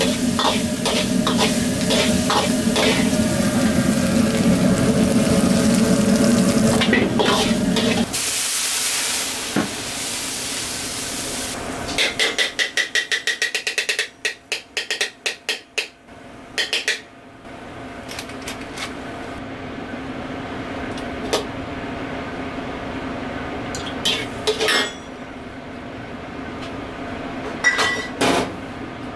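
Minced meat stir-frying in an iron wok: a metal ladle scraping and clicking against the wok over steady sizzling. About eight seconds in the sound drops to a quieter sizzle, with a run of rapid ladle taps a few seconds later and only a few clicks after that.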